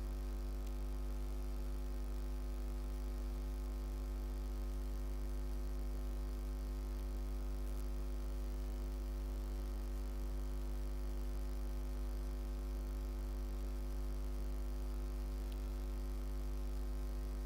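Steady electrical mains hum, a low 50-cycle drone with a buzzy row of overtones that stays unchanged throughout.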